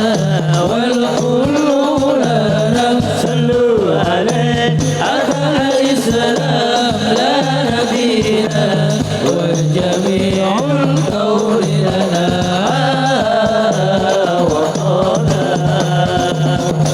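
Sholawat music: a winding, ornamented Middle Eastern–style melody over a steady percussion rhythm and a sustained low bass tone.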